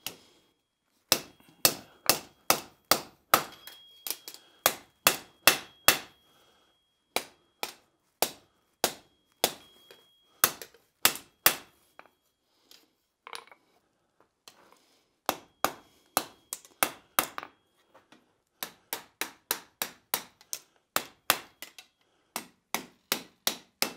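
Hand hammer striking a red-hot flat steel bar on an anvil, about three blows a second in several runs with short pauses, a high ring from the anvil lingering under many of the blows. The smith is opening up and refining an overbent angle in the bar.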